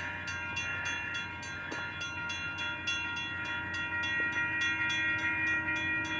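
Railroad crossing warning bell ringing continuously in a fast, even rhythm of about four to five strokes a second, its ringing tones hanging steady underneath: the crossing signals stay active while the derailed train stands across the line.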